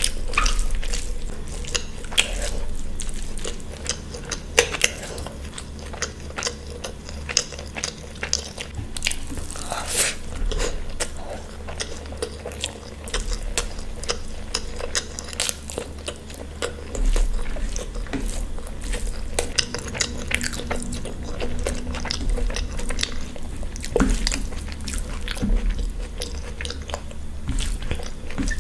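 Close-miked chewing and biting of food, a dense irregular run of small mouth clicks and smacks over a low steady hum.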